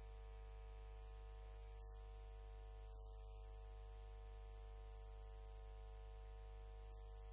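Near silence: a steady low hum with a stack of fainter, higher, unchanging tones above it.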